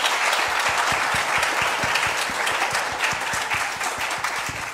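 A congregation applauding, with sharp single claps close to the microphone from the person holding it; the applause dies down gradually toward the end.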